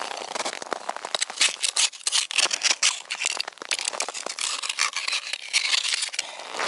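A steel knife blade chipping and scraping at the ice around the rim of an ice-fishing hole: a quick, irregular run of sharp, crunching strokes.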